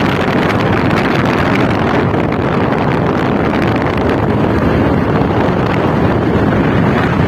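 Wind buffeting a helmet-mounted microphone on a moving motorcycle, a steady loud rush mixed with engine and road noise.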